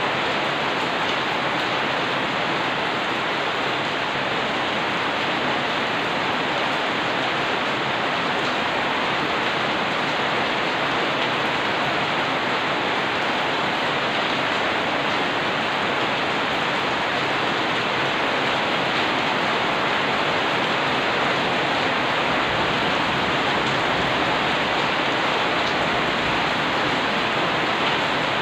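Rain falling steadily, an even unbroken hiss.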